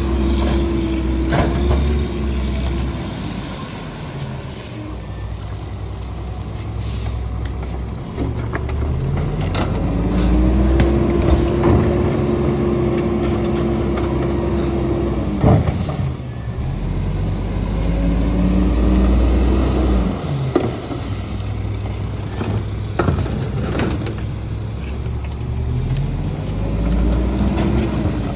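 Mack MR garbage truck's diesel engine speeding up and holding three times as the McNeilus rear-loader's hydraulic packer cycles, with sharp clanks and thumps of carts and packer gear at the hopper.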